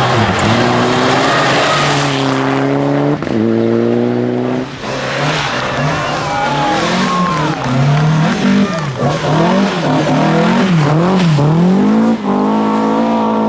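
Rally car engine pulling hard through the gears, its pitch climbing in steps and dropping at each upshift. Then come quick rises and falls of revs as the driver comes on and off the throttle, and near the end a held high-rev run.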